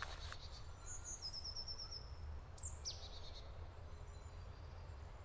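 Faint birdsong: scattered high chirps, a short rapid trill about a second in, and quick downward-sweeping calls near the middle, over a steady low rumble.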